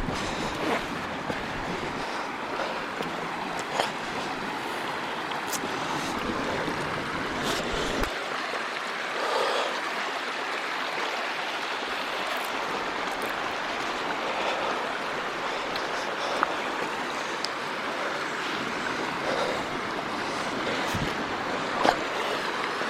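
Waterfall cascades rushing steadily, with a few short knocks.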